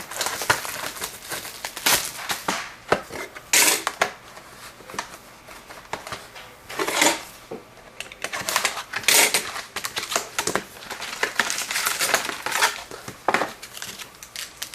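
A sealed hockey card box and its foil packs being opened by hand: wrappers torn and crinkled and cardboard handled, in irregular crackling bursts.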